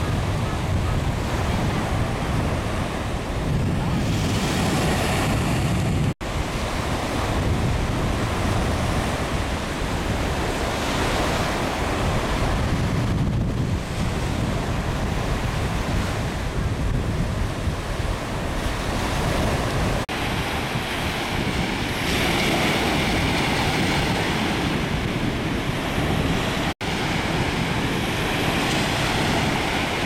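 Surf breaking and washing onto a sandy beach, a steady rushing of waves with wind buffeting the microphone. The sound drops out for an instant twice.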